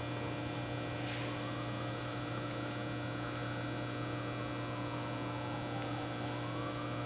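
Steady electrical hum, with a faint higher tone that slowly rises and falls every few seconds.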